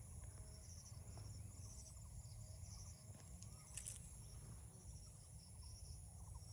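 Faint insects chirping in high, repeated trills over a low rumble, with one brief sharp click about four seconds in.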